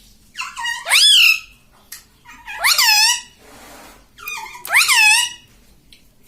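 Ringneck parrot giving three loud, high calls, about two seconds apart, each sweeping sharply up and then down in pitch.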